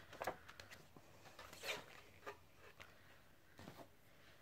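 Faint rustling of glossy magazine pages being flipped and the magazine laid aside: a few soft, brief paper brushes spread apart, otherwise near silence.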